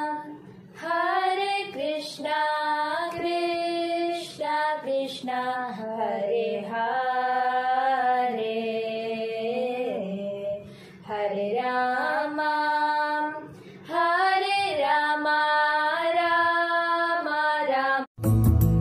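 A high solo voice sings a slow devotional melody in long held, bending notes, with little accompaniment. About 18 seconds in it cuts off abruptly and instrumental music with a heavy low line takes over.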